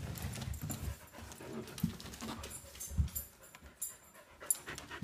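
A dog panting, with a few soft knocks now and then.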